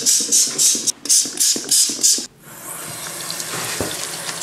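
Trigger spray bottle of citrus bathroom cleaner squirted in a quick run, about seven times in two seconds, onto a ceramic washbasin. Then a steady rush of water from the tap, running into the basin.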